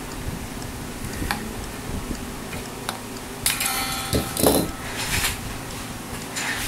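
Handling noise from re-stringing an electric guitar with a Floyd Rose floating bridge: scattered light metallic clicks and taps, then a louder clatter with a brief metallic ring just past halfway.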